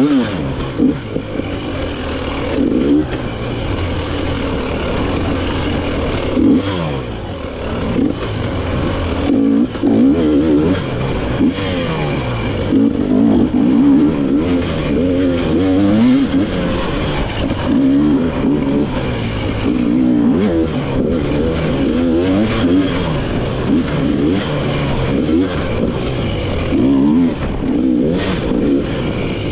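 Dirt bike engine being ridden hard, revving up and down constantly with the throttle, its pitch rising and falling every second or two.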